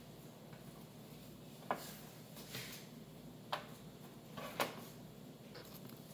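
Apple slices being set down on a baking tray: about four short light knocks and taps spread over a few seconds, one a brief rustling clatter, over a faint steady hum.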